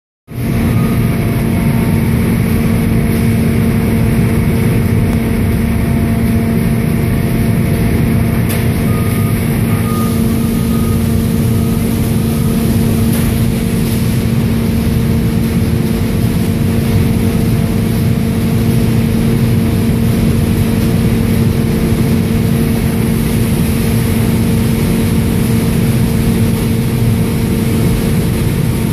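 Steady hum of a pallet roller-conveyor and strapping line running, a constant low machine tone over a noisy drone, with a couple of faint clicks about nine and thirteen seconds in.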